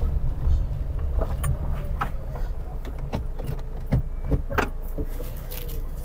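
Toyota Hiace van's engine running at low speed as the van creeps forward to park, with scattered short clicks and crunches from its tyres rolling over gravel and dry ground.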